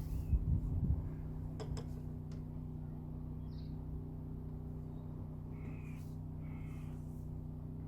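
A steady low hum, with a few dull knocks in the first second and a couple of thin clicks soon after. Two short calls come near the end.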